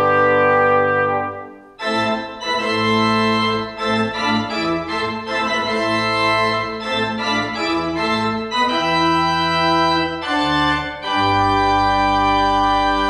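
A brass ensemble's held chord dies away in the first second and a half. The pipe organ then plays a loud chordal passage on its own, answering the brass, and ends on a held chord over a deep pedal note.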